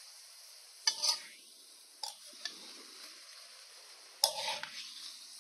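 A metal spoon stirring freshly added rice in a steel pot of peas. There are a few short scraping clinks against the pot, the longest cluster near the end, over a faint steady hiss.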